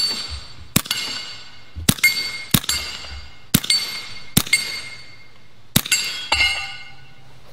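A 9mm (.357) Bintac T9 PCP air pistol fires about seven sharp shots in a row. Each shot is followed by the ringing of a steel Texas Star target plate as it is hit.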